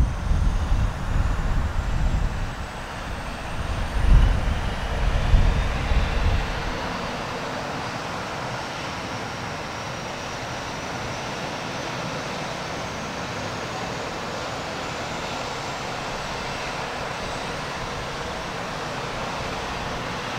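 Pilatus PC-9's PT6A turboprop engine running at taxi power: a steady rushing hiss with a thin high whine that rises slowly in pitch. A gusty low rumble sits under it for the first six seconds or so.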